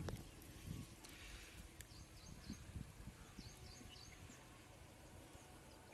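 Near silence: faint outdoor field ambience with a few faint, short high chirps, mostly in the first half.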